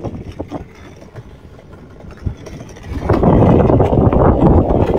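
Skateboard wheels rolling on asphalt under a riding dog. The rolling dies away at the start, a few light knocks follow in the quieter stretch, and the loud rolling noise starts again about three seconds in.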